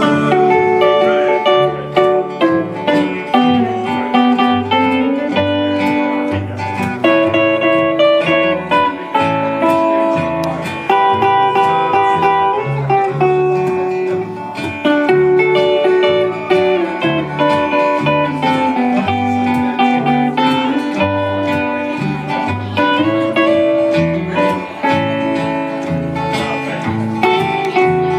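Instrumental break played on guitars and upright bass: an archtop electric guitar takes a single-note lead line over a strummed acoustic guitar rhythm and plucked upright bass notes.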